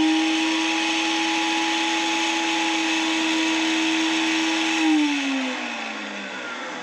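Kitchen mixer grinder running at a steady pitch, wet-grinding green chilli, ginger, curry leaves and coriander with a little curd in its small jar. About five seconds in it is switched off and the motor winds down with a falling whine.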